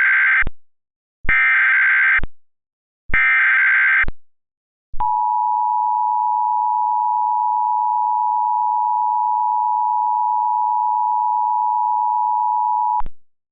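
Emergency Alert System SAME header: the end of one burst and two more full bursts of warbling digital data tones, each about a second long with short gaps between. About five seconds in, the steady EAS attention tone begins and runs for about eight seconds before cutting off with a click.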